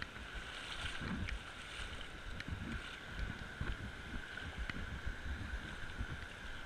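Creek water sloshing and swirling around the legs of someone wading through knee-deep water, with irregular low buffeting.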